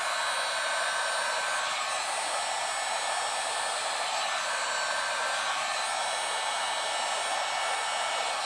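An 1800-watt electric heat gun blowing steadily, its hot air shrinking heat-shrink tubing over a cable splice.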